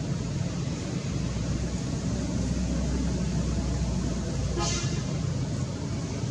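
A passing vehicle's low rumble swells and fades. About four and a half seconds in there is one short, high toot.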